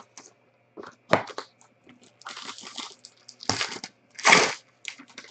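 Cardboard trading-card box and its packaging being handled and opened by hand: a run of short rustles, scrapes and clicks, the loudest a half-second rustling scrape about four seconds in.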